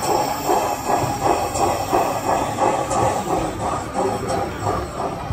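Sound-fitted O gauge model of a GWR 4500 class Small Prairie tank locomotive, its onboard speaker playing steam exhaust chuffs at a steady rhythm of about three to four beats a second as it runs.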